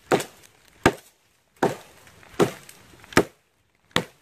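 Bark River Bravo III knife, a thick 3V steel blade with a convex grind, chopping into a fallen tree trunk: six sharp blows, about one every three-quarters of a second.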